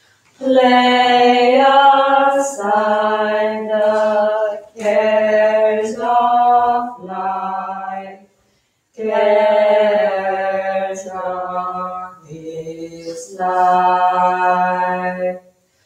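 Orthodox liturgical chant: a single unaccompanied voice sings a hymn in long held notes, phrase by phrase, with brief breaks between phrases.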